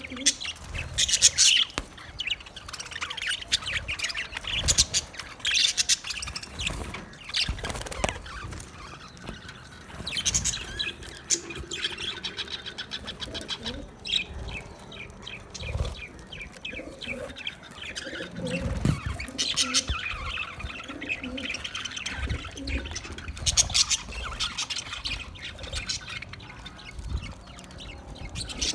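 Budgerigars chattering, with rapid overlapping chirps and squawks throughout and a few low thumps.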